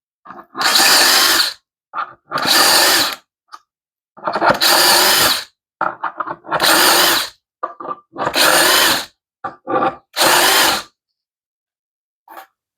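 Power drill with a 1/4-inch bit boring shelf-pin holes through a shelf pin jig: six short runs of about a second each, one per hole, with brief trigger blips between them.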